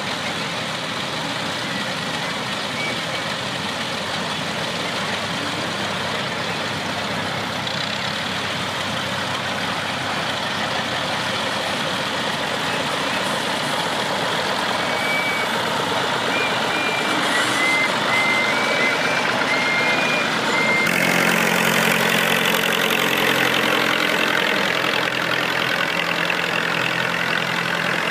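Several vintage tractor engines idling together; from about 21 seconds in, a closer tractor engine running louder with a steadier low hum.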